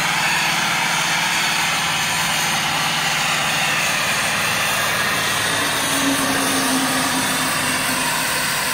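Steam hissing steadily up the stack of a fired coal-and-wood fire-tube boiler, the blower ring jetting steam to force draft through the fire, with a low steady hum beneath.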